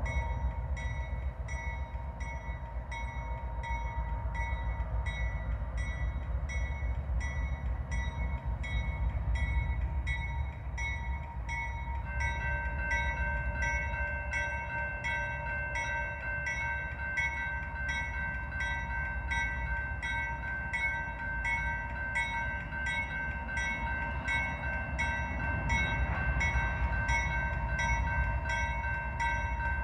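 Railroad grade-crossing warning bell ringing steadily, about two strikes a second, over the low rumble of an approaching CSX diesel freight locomotive. A second, higher steady tone joins the ringing about twelve seconds in.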